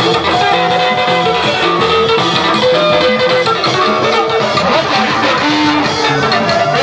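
Ukwuani band music led by electric guitar picking a melody over bass guitar.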